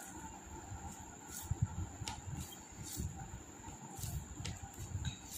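Faint close-up eating sounds of rice and dal: soft irregular low thuds and a few light clicks, over a steady faint high-pitched tone.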